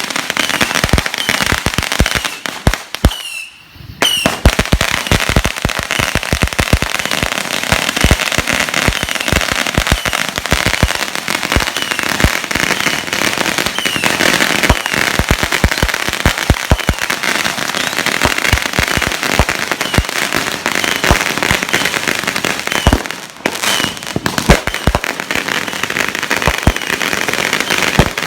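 A dense, continuous barrage of firecrackers and fireworks: rapid bangs over steady crackling, with two brief lulls, one a few seconds in and one about two-thirds of the way through.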